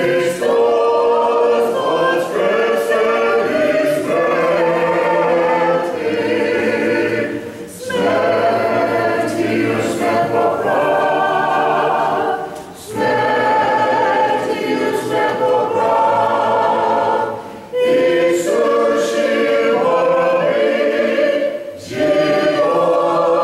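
Orthodox church choir singing a liturgical hymn a cappella, in phrases of about five seconds broken by short pauses.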